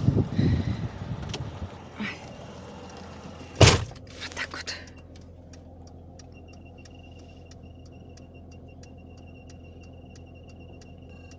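Rustling and handling noise, then a vehicle door slams shut with one sharp thump a little under four seconds in, followed by a short rattle. After it the sound is muffled and steady, with faint ticks and a thin high tone.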